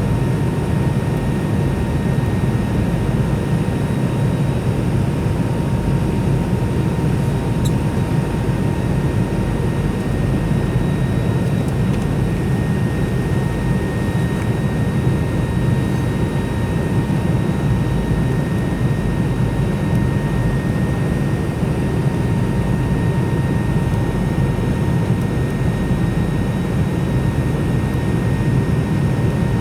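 Cabin noise of a McDonnell Douglas MD-90 airliner in flight: a steady deep rush of jet engine and airflow noise, with a faint high whine that strengthens slightly about halfway through.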